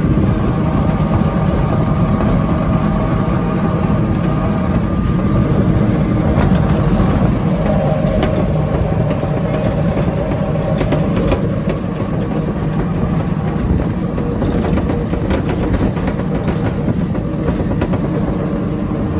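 Auto-rickshaw's engine running steadily, with road noise, heard from aboard the moving vehicle.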